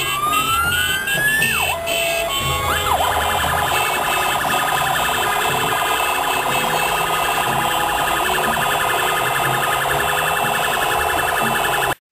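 Electronic vehicle siren: a rising wail that drops away about a second and a half in, then a fast, steady warble over street noise, cut off suddenly near the end.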